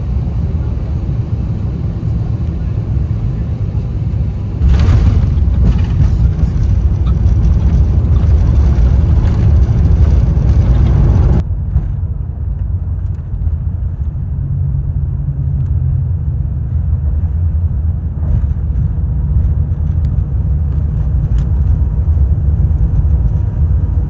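Airbus A350-900 cabin noise on the ground after landing: a steady low rumble. From about five seconds in, a louder rushing roar joins it, then cuts off abruptly about eleven seconds in, leaving the quieter rumble.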